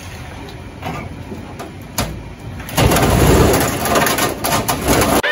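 Cordless reciprocating saw cutting, growing louder about halfway through, with a sharp knock about two seconds in.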